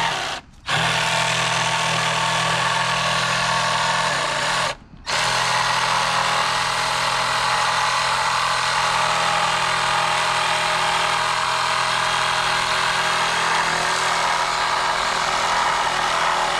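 Cordless drill running almost continuously as it bores into a pine board, with a steady motor hum. It stops briefly twice, about half a second in and again about five seconds in.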